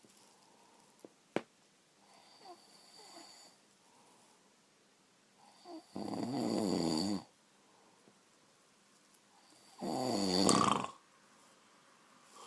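A sleeping person snoring: two loud, rasping snores about four seconds apart, each about a second long, with only faint breathing between them. The uploader calls this apnoea snoring. A single sharp click comes about a second in.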